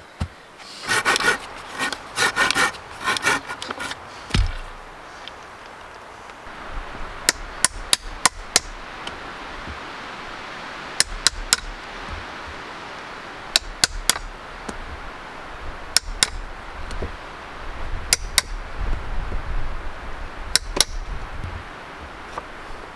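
Moss and bark rustling as they are handled and spread, then sharp wooden knocks in quick groups of two to four, every two or three seconds, over a steady hiss.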